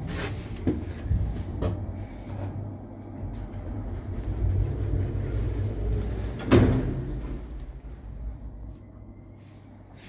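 A 2011-built passenger lift running, a steady low hum with a few clicks. About six and a half seconds in comes a loud clunk with a brief high ring, and the hum then dies away as the car comes to rest.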